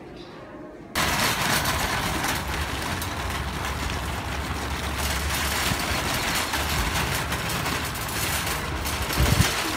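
Metal wire shopping cart loaded with boxes being pushed over concrete, its wheels and basket rattling in a steady, loud clatter with a low rumble. The noise starts abruptly about a second in.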